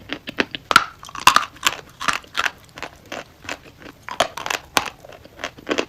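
Close, repeated crunching: short, irregular crackling crunches, about two to four a second.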